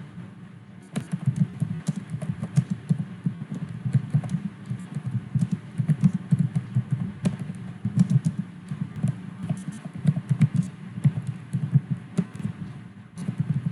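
Typing on a computer keyboard: rapid, irregular key clicks that start about a second in, with a brief pause near the end.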